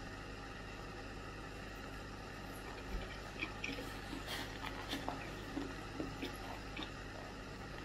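A person eating beef on rice from a foam takeout bowl with chopsticks. Soft, irregular clicks and squishes begin about three seconds in, over a steady low hum of room noise.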